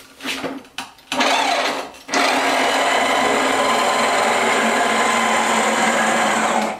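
Electric brushed motor of a PowerMate L-1 stair-climbing hand truck running its ball-nut screw drive to lower the lift carriage: a short run about a second in, then a steady whine for about four and a half seconds that stops near the end.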